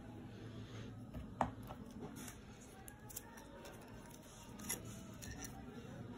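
Handling of a gold-plated metal Cross Peerless 125 fountain pen and its cap: light clicks and taps over faint rustling, the sharpest about one and a half seconds in and another near five seconds.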